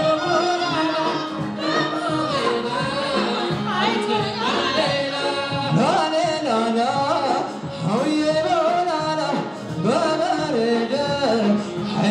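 Gurage traditional song performed live: singing, the voice sliding up and down in pitch, over a band accompaniment.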